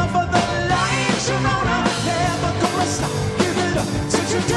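Rock music with a steady drum beat, electric guitar and a singing voice.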